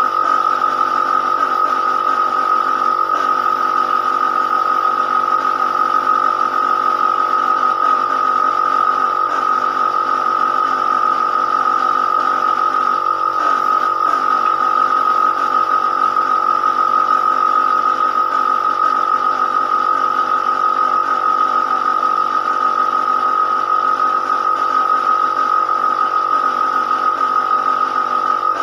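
A power tool's motor running steadily with a high, even whine.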